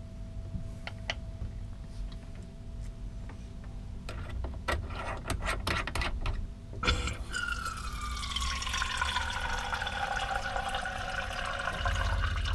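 Small clicks of a faucet aerator being handled and screwed onto a chrome spout. About seven seconds in, the tap opens and a thin stream of water runs into a plastic measuring jug, with a ringing pitch that slowly falls. The stream is thin because a water-saving aerator limits the flow to about 100 ml in 5 seconds.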